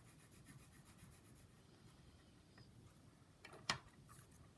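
Faint scratching of a wax crayon rubbed back and forth on paper in quick, even strokes, which stop after about a second and a half. A short sharp tap comes near the end.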